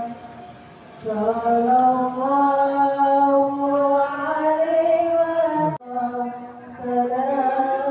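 A solo voice chanting a slow devotional melody in long held notes that slide between pitches. It is quiet for about the first second, then it cuts off abruptly a little before six seconds in and picks up again about a second later.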